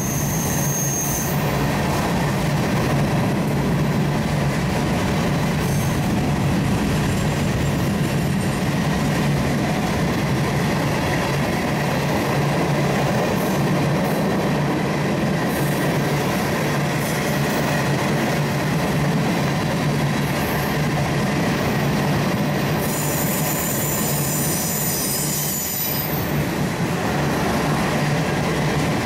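A train's cars rolling past at steady speed, with continuous wheel-on-rail noise and brief high-pitched wheel squeals, the longest a few seconds near the end.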